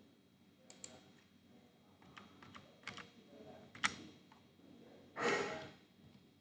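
Scattered, quiet clicks and taps on a computer keyboard and mouse during slide editing, with one short, louder exhaled breath about five seconds in.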